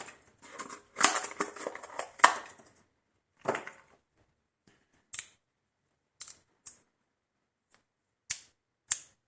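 Large multitool blade cutting through cardboard: a dense scraping, tearing sound with two sharp snaps in the first three seconds, then a handful of separate short clicks and scrapes.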